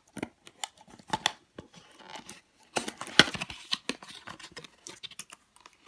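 Packaging being opened by hand to get at the next blind-box squishy: an irregular string of crinkles, crackles and small tearing or snipping sounds, loudest about three seconds in.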